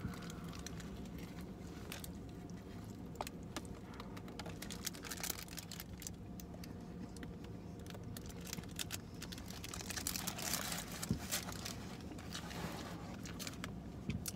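Quiet eating sounds: chewing a fried chicken and glazed donut sandwich, with its paper wrapper crinkling in scattered small clicks and rustles over a steady low hum.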